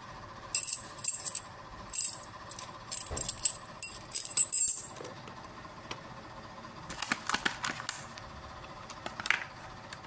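A ring of four padlock keys jingling and clinking as it is handled, in several short bursts over the first five seconds and another burst about seven seconds in.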